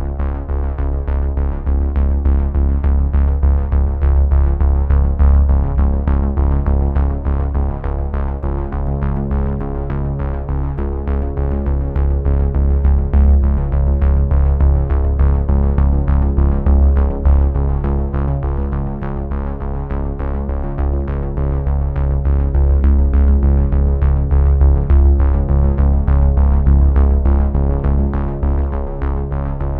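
Background music: electronic synthesizer track with a steady bass and a regular beat.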